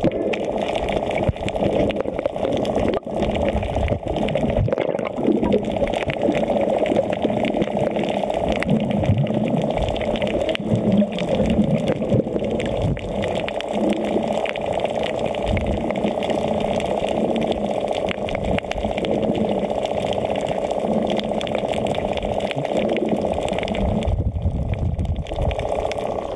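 Water rushing and sloshing around a camera held underwater, muffled, with a steady crackle of bubbles.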